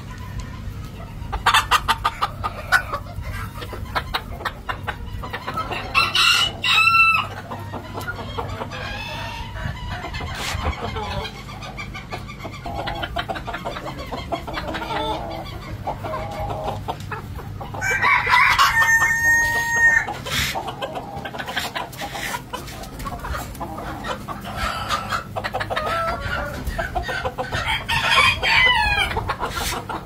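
Cochin chickens clucking on and off, with a rooster crowing three times: a short crow about seven seconds in, a longer crow with a held final note a little past the middle, and another near the end.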